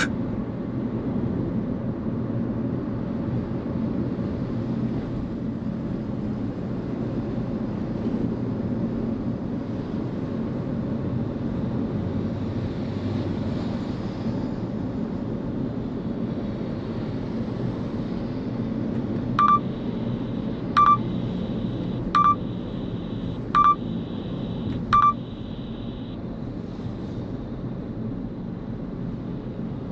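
Steady road and engine noise of a car driving. About two-thirds of the way through, five short electronic beeps sound about a second and a half apart, like a navigation system's speed-camera proximity alert.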